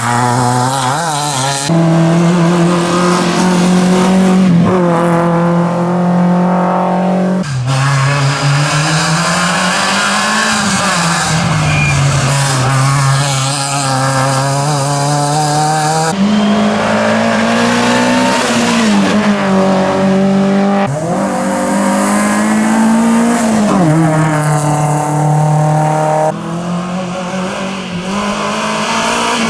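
Rally car engines at full throttle, pitch climbing and dropping as the drivers rev, shift and lift. The sound changes abruptly several times as one car's pass gives way to the next.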